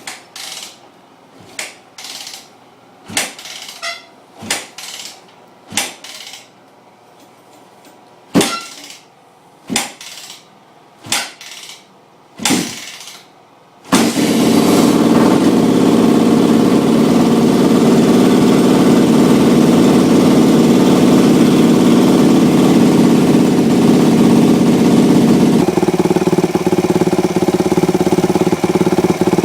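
A 2005 Yamaha YZ250F's 250 cc four-stroke single being kick-started for its first start on a new bottom end. About a dozen short kicks come roughly a second apart without it catching, then about halfway through it fires and keeps running, loud and steady. A few seconds before the end its note shifts lower.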